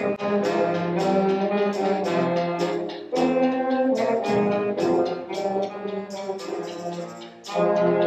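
School concert band playing a seasonal piece: brass and woodwinds in sustained chords over regular percussion strikes about three a second. Near the end the band drops away briefly and comes back in loud.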